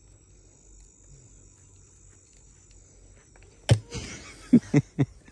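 Crickets chirping in a steady high trill, then about three and a half seconds in a sharp knock followed by three quick thumps: handling noise as the handheld camera is moved.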